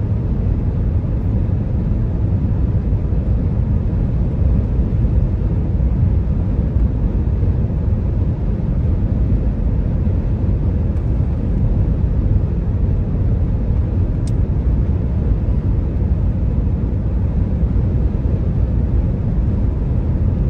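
A car cruising at highway speed, heard from inside the cabin: a steady, low rumble of road and wind noise.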